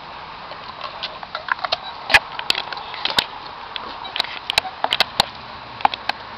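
A dog licking and chewing ice cream from a cone: irregular sharp wet clicks and smacks, some single and some in quick runs, busiest in the second half.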